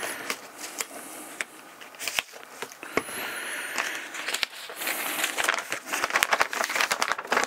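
A clear plastic packing-slip pouch on a cardboard box being pulled open and a folded paper slip drawn out and unfolded: crinkling plastic and rustling paper with many small clicks, busier in the second half.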